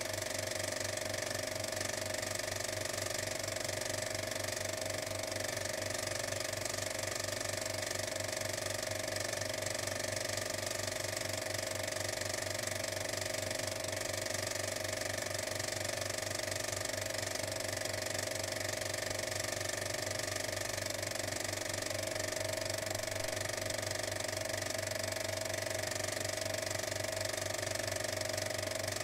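A steady mechanical whir with a very rapid, even flutter and a held mid-pitched tone, unchanging throughout.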